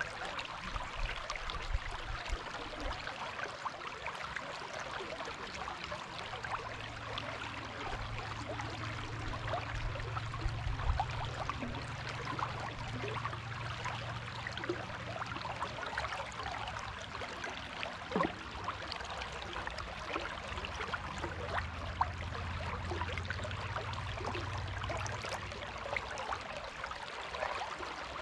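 Water of the Dunajec river rushing steadily, a dense splashing hiss. A low hum runs underneath from several seconds in until near the end.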